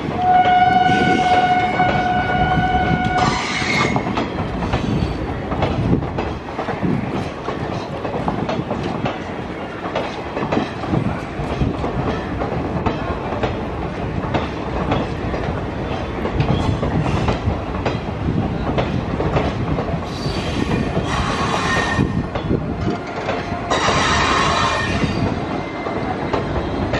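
Passenger train coaches rolling into the station with a steady rumble and the clickety-clack of wheels over the rail joints. A train horn sounds for about three seconds near the start, and two shorter shrill bursts come about three quarters of the way through.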